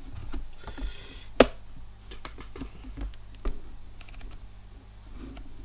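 Irregular clicking and tapping on a computer keyboard, with one sharper click about a second and a half in.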